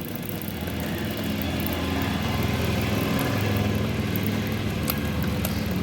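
Motorcycle engine running with its drive chain turning, while old engine oil is put on the chain to quiet a dry, noisy chain. A steady low hum with faint high clicks over it.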